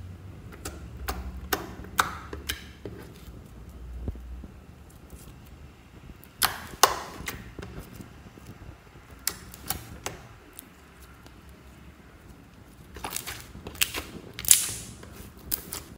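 Pink glitter slime being pressed and stretched by hand, giving off irregular sticky clicks and pops as it pulls apart and air pockets in it burst, with a few louder clusters of pops about six seconds in and again near the end.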